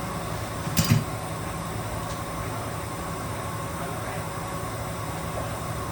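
A steady mechanical hum runs throughout. A single sharp knock comes just under a second in.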